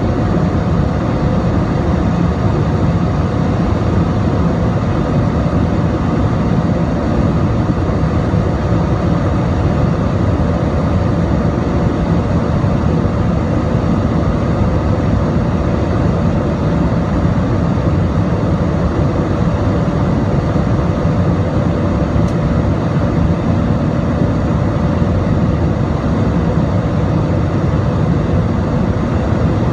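Steady cabin roar of an Airbus A320-216 airliner in flight, heard over the wing: engine noise from its CFM56 turbofans mixed with rushing airflow, with faint steady tones running through it.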